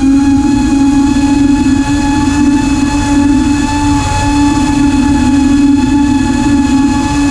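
FPV racing quadcopter's brushless motors and propellers whining steadily under climbing throttle, one held buzzing pitch that dips briefly a couple of times.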